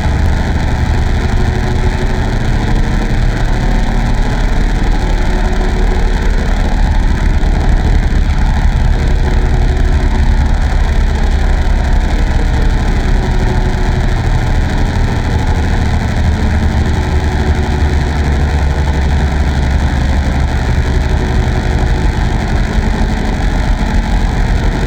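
Loud, steady, engine-like rumble that does not change throughout, heaviest in the low end, run through heavy audio-effect filtering.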